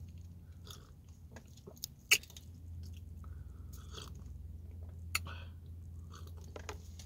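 A person chewing a mouthful of biscuit sandwich and sipping from a cup, with two sharp clicks about two and five seconds in, over a low steady hum.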